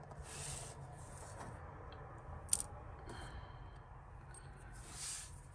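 Soft swishing and rustling of hands brushing over a tabletop and handling small pieces of costume jewellery, with one short, sharp click about two and a half seconds in.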